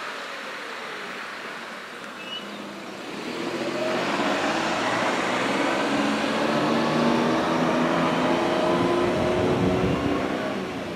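A motor vehicle's engine passes: it grows louder about three seconds in, runs with a steady note of several tones, and fades near the end.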